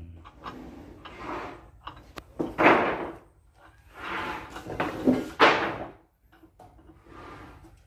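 Clunks and scrapes of spanners and metal parts being handled while the cutter on a homemade woodworking machine's spindle is changed, in several short separate bursts with the motor not running.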